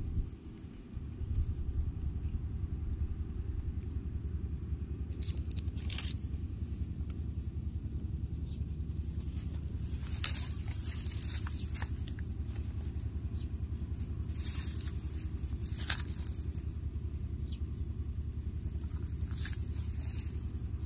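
A steady low rumble, with short crackling rustles of dry straw now and then.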